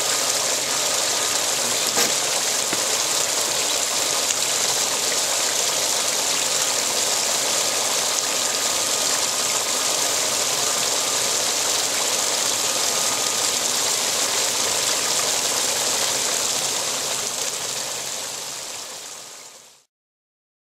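Water pouring steadily from a pump-fed spray bar down a 3-foot test sluice and splashing into the catch tub below, a constant rushing hiss. It fades out near the end.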